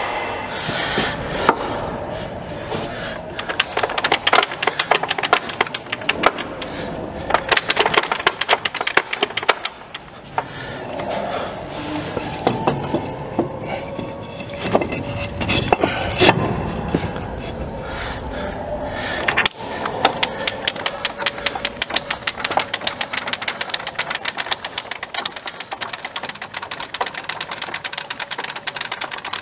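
Hand tool work on a tank's track and return roller: irregular metal clanks and clicking. From about two-thirds of the way through, a ratchet wrench clicks rapidly and evenly.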